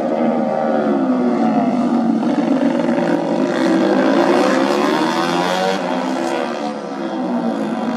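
Several 180 cc supermoto race motorcycles riding a warm-up lap, their engines revving with overlapping notes that rise and fall as they pass and pull away.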